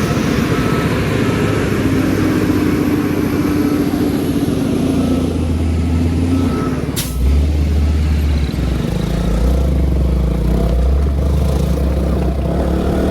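Heavy road vehicle engines running at low speed in slow, blocked traffic, the low engine note changing about seven seconds in. Just before that change comes one short, sharp hiss or crack.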